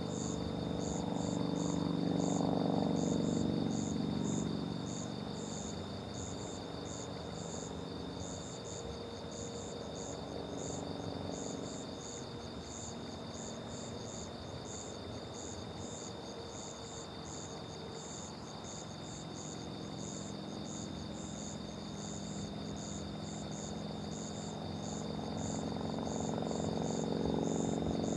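Chorus of night insects, crickets chirping in regular high pulses about two a second over a steady high trill. A low rumble swells about two seconds in and again near the end.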